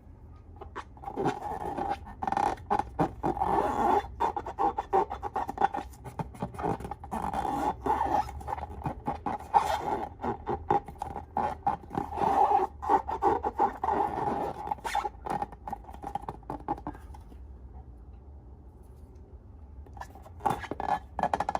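Busy scraping and scratching with many quick clicks, pausing for a few seconds near the end and then starting again.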